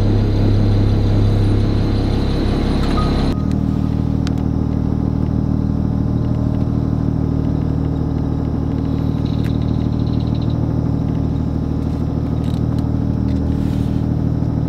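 Trawler's inboard diesel engine running steadily just after being started, a low even drone that changes tone about three seconds in.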